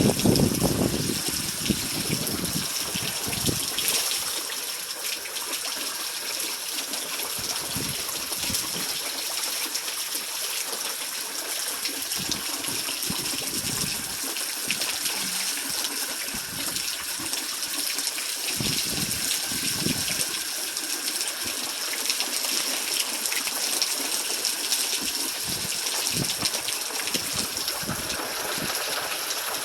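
Steady heavy rain falling, with occasional gusts of wind buffeting the microphone, most strongly in the first few seconds.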